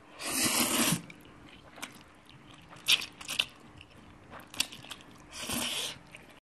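Spicy Korean instant noodles being eaten with chopsticks close to the microphone: two loud noisy stretches of about a second, near the start and near the end, with chewing and a few small clicks between.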